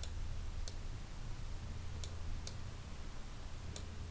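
A few faint computer mouse clicks, about five scattered and spaced irregularly, over a low steady hum.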